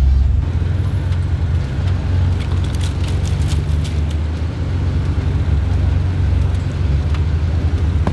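Lifted Jeep Wrangler JK's engine running low and steady as the rig crawls over rocks and logs, with a cluster of sharp clicks and cracks about three to four seconds in.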